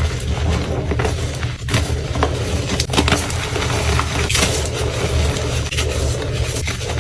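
Blocks of gym chalk being crushed and crumbled by hand, a dense run of crunchy crackles and sharp snaps over a steady low hum.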